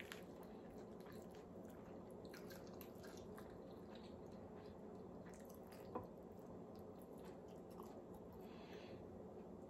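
Faint eating sounds: soft chewing and wet squishes as fingers pick apart a sauced fried fish, with scattered small clicks and one sharper tick about six seconds in.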